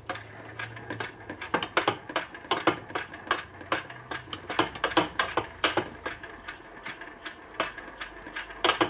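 The gear train and cams inside a bare 1961 Harley-Davidson XLCH Sportster crankcase being turned over by hand on the bench, giving a quick, uneven run of metallic clicks and knocks, about three a second.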